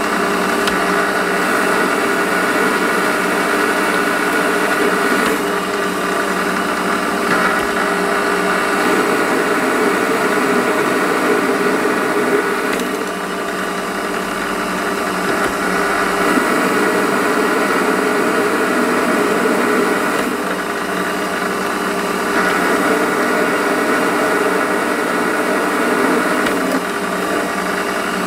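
Warco WM180 bench lathe running steadily under power, its motor and headstock gearing giving a steady whine while a turning tool takes a cut along a spinning 12 mm bar, turning it down.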